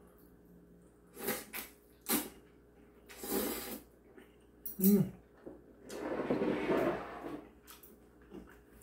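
A person eating mixed noodles with chopsticks: a series of short slurping and mouth sounds, a brief hum about five seconds in, and a longer, louder stretch of slurping and chewing near the end.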